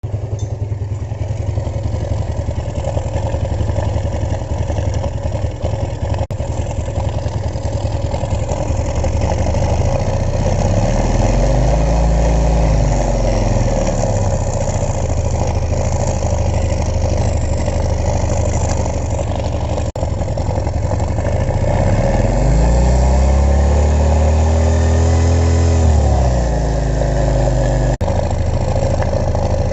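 Motorcycle engine idling after a tune-up, revved up and back down twice: briefly about a third of the way in, then held higher for a few seconds about three-quarters through.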